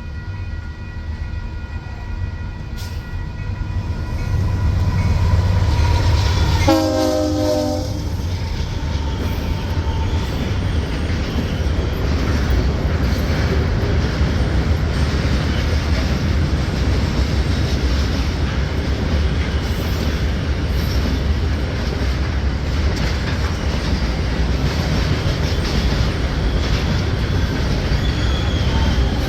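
Locomotive air horn sounding as a Union Pacific train approaches, with one loud, short blast about seven seconds in as the engine's rumble reaches its peak. Then the train keeps rolling past with a steady rumble and wheels clicking over the rail joints.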